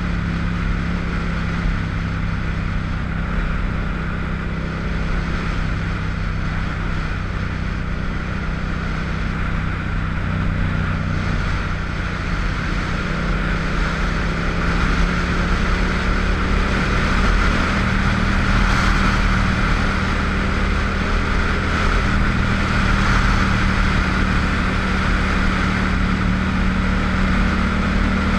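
Motorcycle engine running steadily at cruising speed, with wind rushing over a helmet-mounted microphone. It gets a little louder about halfway through.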